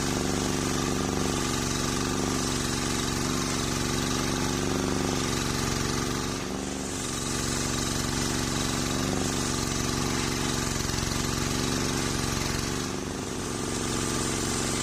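Homemade table circular saw running steadily and ripping a waru (sea hibiscus) log lengthwise, with the drive motor's steady drone under the blade's hiss. The sound eases briefly twice, near the middle and near the end.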